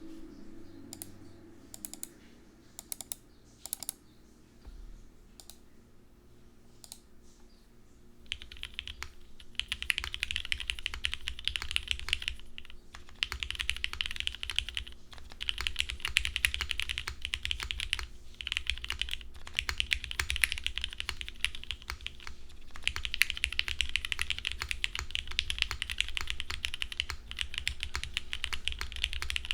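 Mechanical keyboard with lubed Cherry MX Black linear switches, an aluminum case and CRP keycaps being typed on. A few scattered keystrokes come first, then about eight seconds in steady fast typing starts, broken by a few brief pauses.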